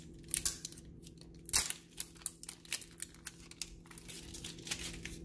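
Clear plastic shrink wrap being peeled and torn off a Flarp noise putty tub by hand, crinkling in quick irregular crackles. The loudest crackle comes about a second and a half in.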